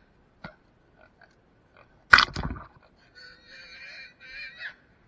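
Feral hog squealing in wavering bursts during the second half. About two seconds in there is one loud, sudden crash lasting about half a second, and it is the loudest sound.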